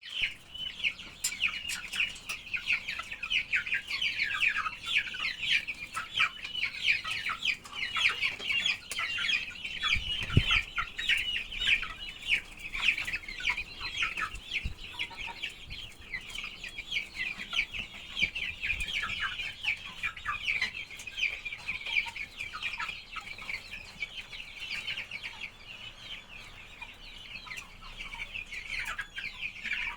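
Flock of Sussex chickens calling, a dense overlapping chatter of short high calls without a break. A single low thump sounds about ten seconds in.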